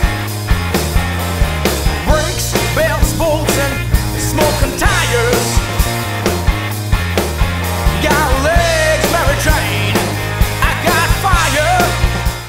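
Background music: a rock song with a singer over a steady drum beat and bass, fading out at the very end.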